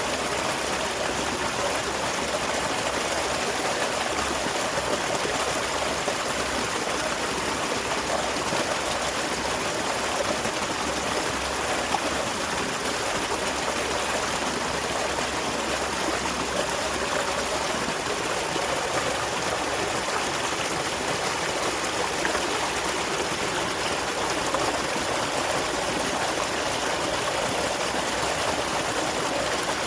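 Small waterfall spilling into a stream, a steady rushing and trickling of water.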